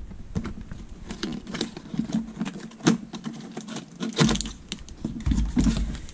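Cardboard box being handled and opened by hand: irregular clicks, scrapes and rustles of the card and flaps, with a sharper snap about three seconds in.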